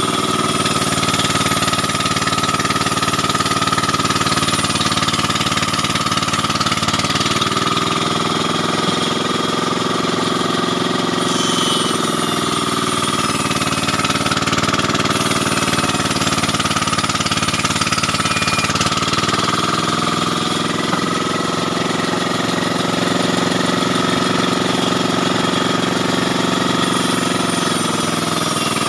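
Large vertical band saw running and cutting through a wooden plank, a loud steady machine noise whose pitch sags and recovers a few times as the wood is pushed through the blade.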